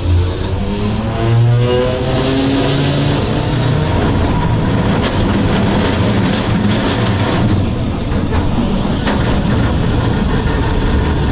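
Streetcar running on the Iyo Railway Jonan Line, heard from inside: the motor whine rises in pitch over the first few seconds as it picks up speed, then settles into a steady running rumble with a few clacks from the wheels on the rails.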